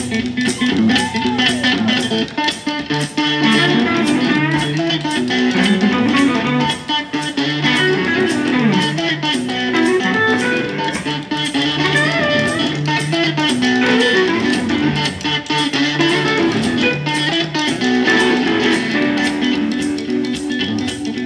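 Live electric blues band playing an instrumental stretch without vocals: an electric guitar plays bending lead lines over drums and a baritone guitar.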